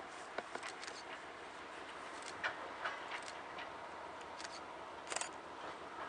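Camera shutters clicking irregularly, single clicks here and there and a quick run of several about five seconds in, over a faint steady hiss.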